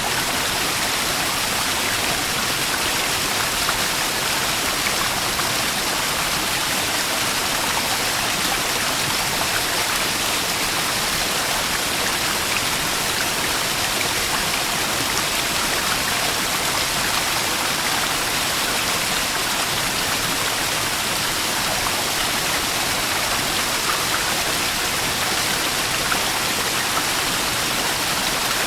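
Small waterfall splashing and rushing steadily, an even water noise with no let-up.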